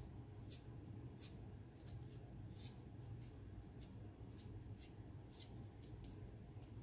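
Faint, short scraping strokes, a little under two a second, as mixed JB Weld epoxy is buttered onto an aluminum patch piece, over a steady low hum.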